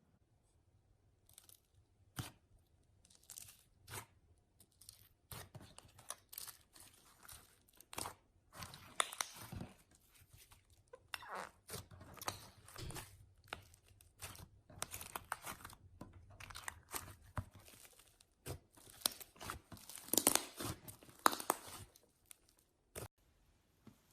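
Slime being pressed and stretched, making an irregular run of soft crackles, crunches and sharp little snaps.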